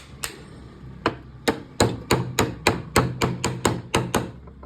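Repeated hammer taps: a few spaced blows, then a quick run of about a dozen at roughly four a second, which stops shortly before the end.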